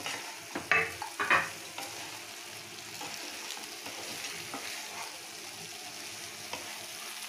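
Fried potato pieces stirred and tossed with a wooden spatula in a kadai of sizzling chili sauce: a steady sizzle with light scraping and small clicks. Two or three sharp clacks of the pan or spatula stand out in the first second and a half.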